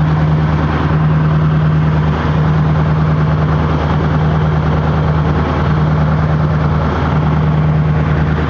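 A fishing boat's inboard engine running steadily underway, a constant low drone heard from on board.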